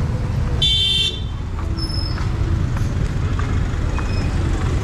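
Steady rumble of street traffic, with one short, high horn toot lasting about half a second just under a second in.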